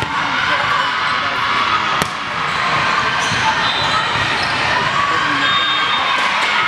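Volleyball rally in a busy sports hall: a sharp smack of the ball being hit about two seconds in, over a steady din of many voices and balls bouncing.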